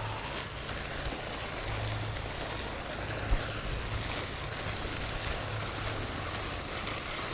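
Wind on the microphone, a steady rushing noise with low rumble, with a single low thump about three seconds in.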